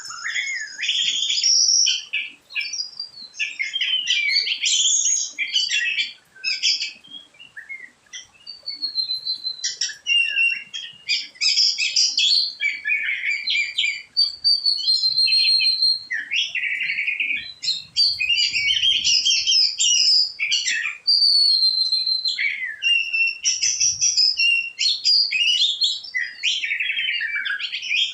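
Birds chirping and singing without pause: quick chirps and trills mixed with clear, held whistled notes.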